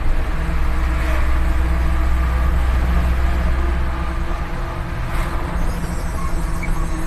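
Engine and road noise of a moving vehicle heard from inside the cab, a steady low drone that eases a little about four seconds in.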